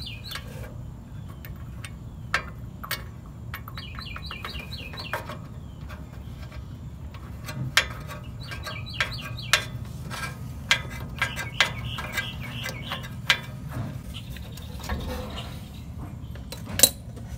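Scattered light clicks and knocks of a spark plug and hand tool being worked into a Briggs & Stratton mower engine. A bird chirps in short quick phrases of repeated notes every few seconds, over a steady low hum.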